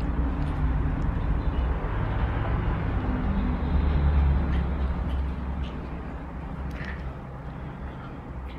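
Low, steady motor rumble with a few faint clicks; it eases off over the second half.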